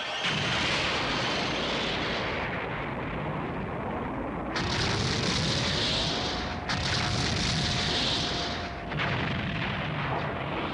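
Cartoon sound effects of a barrage of energy blasts and explosions: a continuous rumbling din. A rising whine starts about three seconds in, levels off halfway through and cuts out near the end.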